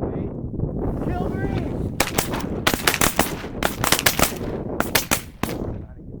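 A rapid volley of shotgun blasts, many shots in quick succession over about three and a half seconds from several guns firing together, over heavy wind noise. A few short honks come just before the shooting.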